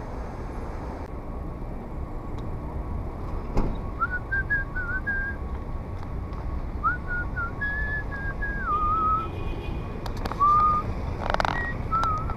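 A person whistling a wavering tune in short phrases, over steady wind and traffic noise from riding a bike along a street.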